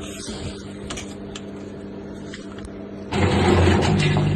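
Siemens washing machine running on spin-only with a steady low hum and a few light clicks; about three seconds in its drain pump starts, and a louder hum with water rushing out through the waste hose takes over. The pump is draining freely, a good sign that the coin blockage is cleared.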